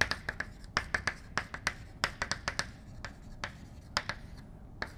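Chalk writing on a blackboard: a quick, irregular series of sharp taps and short scratching strokes, with a brief pause near the end.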